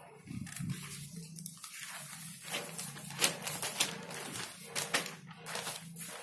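Sheets of paper rustling and crinkling as they are handled and turned over, with sharper crackles now and then, the loudest about three seconds in.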